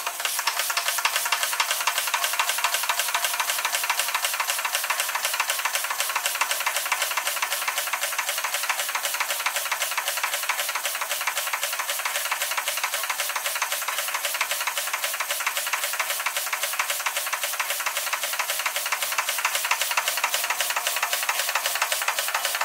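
Doll 365 twin-cylinder toy steam engine running on live steam: a fast, even beat of exhaust chuffs over steady steam hiss. It is belted to a Baker fan and running under load.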